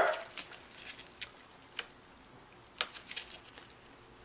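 Gloved fingers picking at the protective plastic backing on a sheet of FEP film, making faint, scattered clicks and light crackles as the backing refuses to peel.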